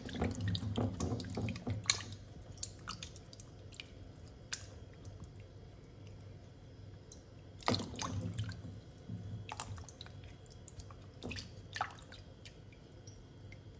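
Water splashing and dripping as a hand rinses peeled taro in a stainless steel bowl of salt water: short irregular sloshes and drips, busiest at the start and again about eight seconds in, with quieter drips between.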